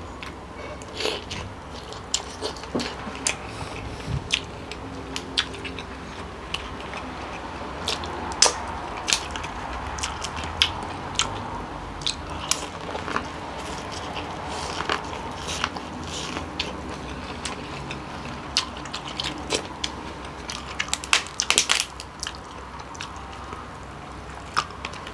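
Close-up eating sounds: biting and chewing king crab meat and corn on the cob, with many irregular sharp clicks and cracks and a quick run of them about 21 seconds in.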